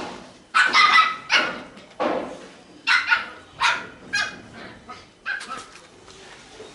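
A dog barking: a run of about ten short barks, loudest near the start and fading a little after that.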